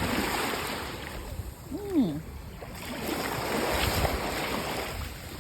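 Small waves washing on the beach, with wind buffeting the microphone. A short tone rises and falls about two seconds in.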